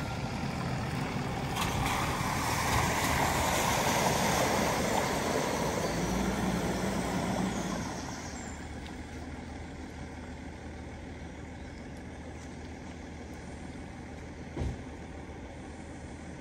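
Range Rover wading slowly through a flooded ford: water rushing and sloshing around its wheels, building over the first couple of seconds, loudest midway and dropping off after about eight seconds to the steady hiss of flowing water. A single sharp knock near the end.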